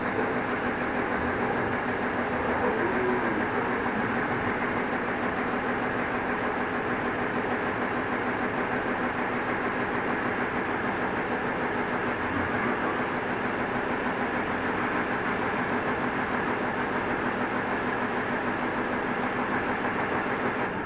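A machine running steadily with a constant mechanical drone, cutting off suddenly at the end.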